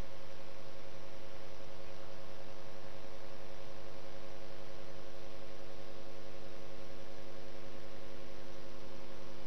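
Steady hum of several fixed tones over an even hiss, unchanging throughout, with no rise or fall in pitch or level.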